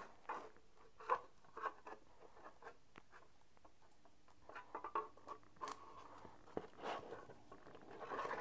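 Scattered short scrapes and rustles of a scraper blade and paper being worked over wet spray paint, with a denser run of scraping about halfway through.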